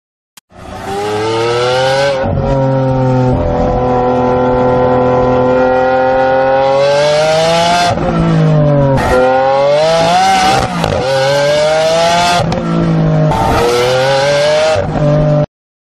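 Lamborghini engine running hard under acceleration, heard from inside the cabin. Its pitch rises and falls, with several abrupt drops. The sound starts about half a second in and cuts off suddenly near the end.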